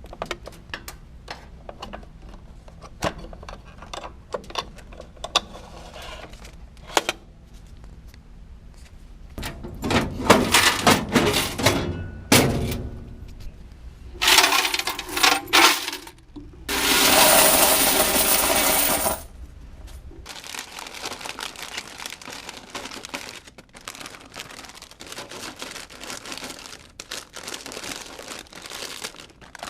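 Coins clinking and rattling while a vending machine's money is collected, among scattered clicks and knocks of handling. A loud spell of rattling comes in the middle, followed by about two seconds of steady rushing noise.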